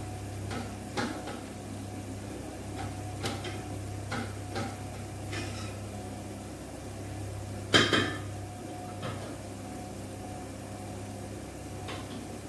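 Cookware and utensils clinking and knocking now and then over a steady low hum, with one louder metal clatter about eight seconds in.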